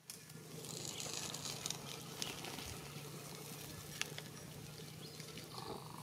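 A plastic bottle cap being twisted off, with a scratchy rasp about a second in and a few light clicks, over a faint low steady hum. Near the end a steady mid-pitched sound begins.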